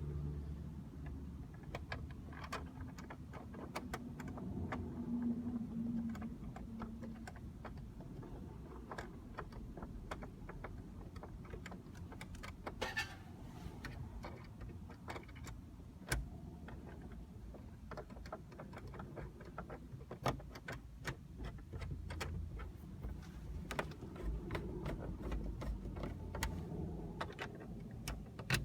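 Scattered light clicks and ticks at an uneven pace over a low steady hum, with a few sharper knocks.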